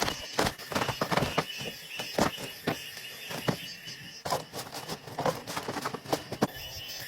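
Irregular knocks and clicks at uneven spacing, like gear being handled or footsteps, over a steady high chirring of insects.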